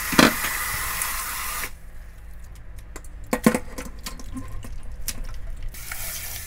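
Tap water running onto gamtae seaweed in a stainless steel colander as it is rubbed and rinsed by hand. About two seconds in the stream stops and gives way to splashes and knocks of hands sloshing the seaweed in a bowl of water. The running water returns near the end.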